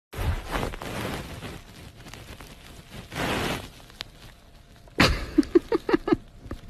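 A cat licking a fleece blanket: soft rustling and licking noises, with a quick run of short rhythmic pulses about five seconds in.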